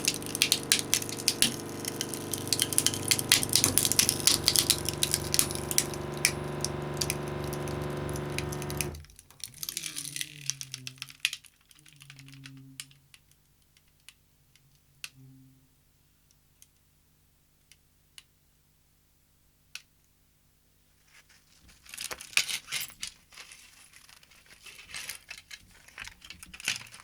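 A motor hums steadily while a twin bell alarm clock crackles and cracks as it is crushed, and the hum cuts off suddenly about nine seconds in. Near the end come scattered clicks and rattles of small metal and plastic parts.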